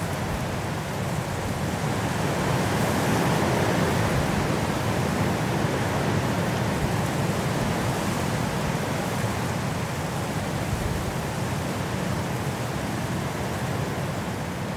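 High wind blowing through trees in a snowstorm, a steady rushing that swells a couple of seconds in and eases slightly toward the end.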